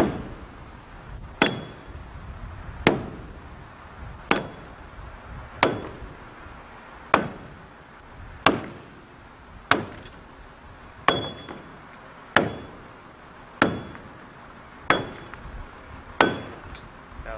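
Steady, even blows of a long-handled metal tool against the concrete staves at the foot of a silo, about one every second and a half. Each strike is a sharp crack with a short metallic ring, knocking a hole through the wall to take a chain for pulling the silo over.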